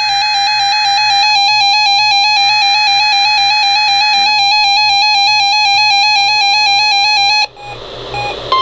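Electronic warbling alert tone, a buzzy trill flipping rapidly between two pitches. It cuts off abruptly about seven and a half seconds in, leaving a second of hiss.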